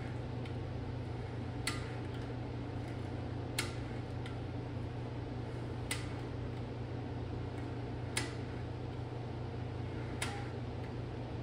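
F24 engine's timing chain and cam gears being turned over by hand, giving five sharp snaps spaced about two seconds apart over a steady low hum. The snaps are the chain kicking and slapping because the chain tensioner is not yet installed.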